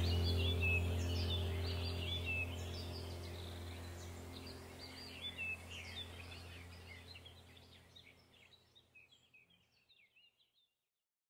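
Background soundtrack of birds chirping over a steady low hum, fading out over about eight seconds into silence.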